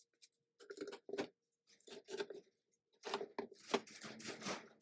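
Faint scattered clicks and scrapes of Cleco sheet-metal fasteners being pulled out of a plexiglass aircraft windshield's edge, in short clusters, over a faint steady hum.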